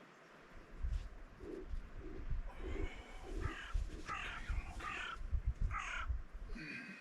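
A crow cawing: a series of about four short harsh caws in quick succession in the second half, preceded by softer lower calls, over an uneven low rumble.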